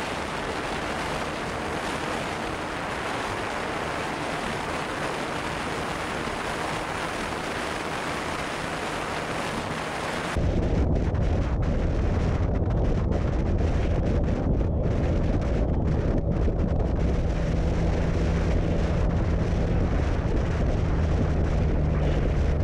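Wind rushing over the microphone of a motorcycle at speed. About ten seconds in, the sound switches abruptly to a louder, steady low drone from the Benelli TNT 300's 300 cc parallel-twin engine cruising, with wind still on the microphone.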